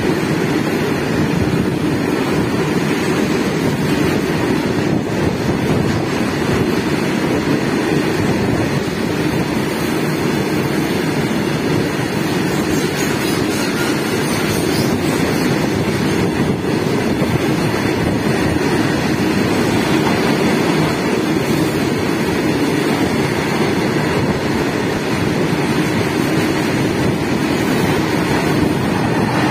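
Goods train's freight wagons rolling past at speed, a steady, unbroken rumble of wheels on the track, with wind buffeting the microphone.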